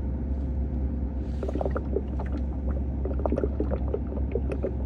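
Water gurgling and glugging inside a Sunbeam humidifier as it is tipped back to send more water into its filter: a run of short bubbly blips starting about a second and a half in, over a steady low hum.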